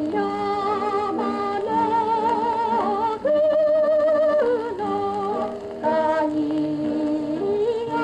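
Woman's solo voice singing with a wide vibrato, accompanied by a mandolin orchestra, on an old 1929 recording. A little past three seconds in she holds a higher note, the loudest moment.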